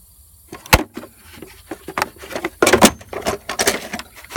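Hand tools and bit sets being handled in a toolbox drawer: a sharp click a moment in, then a run of clattering and rattling of metal pieces and cases, loudest in the middle.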